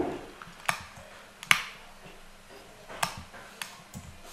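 Computer mouse and keyboard clicks: about five single sharp clicks, spaced irregularly, the loudest about a second and a half in.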